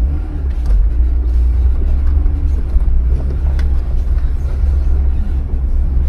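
Jeep engine and drivetrain running at low speed with a deep, steady rumble while crawling up a rocky off-road trail, with a few faint knocks.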